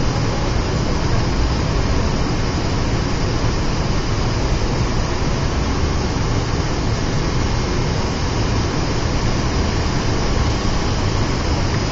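Steady roar of an airliner's engines and rushing air, heard from inside the passenger cabin during the descent to land.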